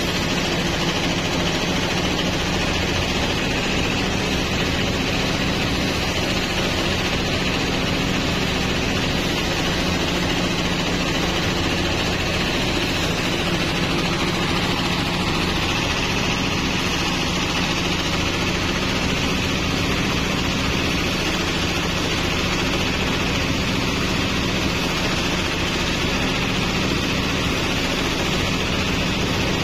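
Portable rice threshing machine running steadily, its drum powered by a small single-cylinder diesel engine, while rice sheaves are fed into it and threshed.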